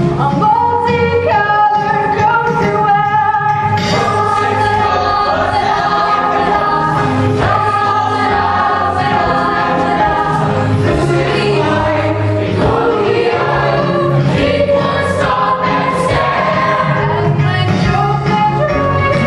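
A large cast singing together in chorus, a musical-theatre ensemble number over instrumental accompaniment.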